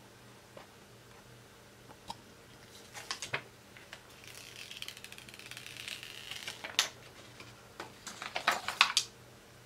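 Protective plastic film being peeled off a new iPhone 6S screen: a crackly peeling hiss lasting a couple of seconds from about four seconds in. Around it are sharp clicks and taps from handling the phone and box, loudest near the end.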